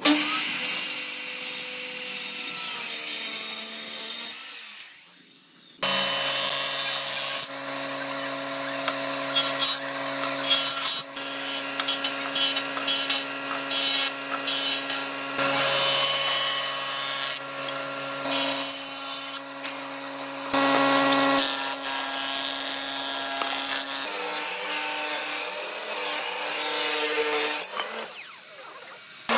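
Handheld circular saw cutting across a pine board for about four seconds, then winding down. Then a jointer runs with a steady hum while a board edge is fed over its cutterhead. Later a table saw rips a thin strip.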